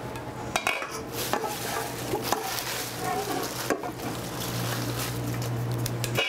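Fresh spinach tipped into a skillet of garlic sautéing in olive oil, sizzling, with clinks and scrapes of a glass bowl and utensil against the pan.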